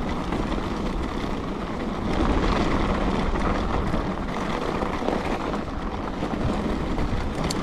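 Steady rushing rumble of a bicycle rolling down a packed-snow trail on Schwalbe Ice Spiker Pro studded tyres: the tyres running over hard snow, mixed with wind on the microphone.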